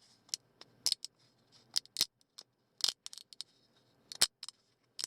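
3D printer's stepper motors making short, irregular moves as a print begins, heard as quick clicks and brief buzzes over a faint high steady whine.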